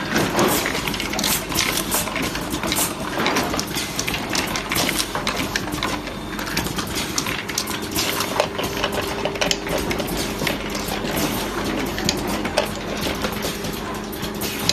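An automated power bank battery assembly and welding machine running, with a quick, irregular string of mechanical clicks and taps over a steady electrical hum.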